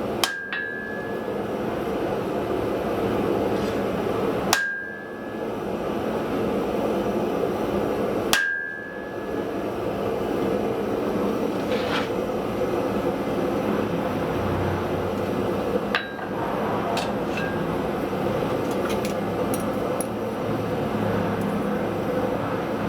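Single hammer blows on hot steel at the anvil, a few seconds apart, the first few ringing briefly, over the steady roar of a gas forge. The strikes thin out to lighter clicks in the second half.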